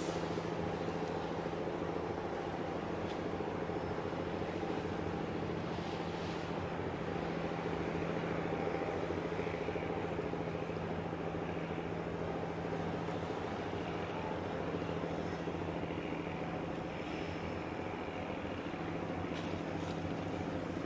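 An engine droning steadily with a constant low hum, its pitch unchanging throughout.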